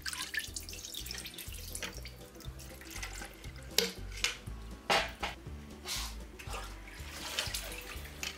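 Linseed oil scooped with a tin can from a steel tank and poured into a plastic bucket: repeated splashing and pouring, with the can clinking against the metal rim. The loudest splashes come about four and five seconds in.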